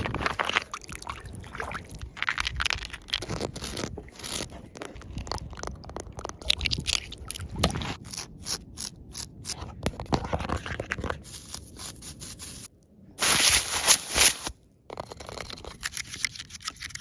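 Fast ASMR triggers made close to the microphone: rapid, irregular scratching, crunching and tapping, with a louder rushing noise about thirteen seconds in that lasts over a second.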